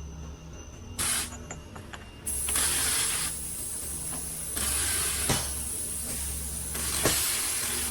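Compressed air hissing in several bursts of a second or more over a steady low hum, with a sharp click about five seconds in: typical of a pneumatic-hydraulic vise system venting or blowing air.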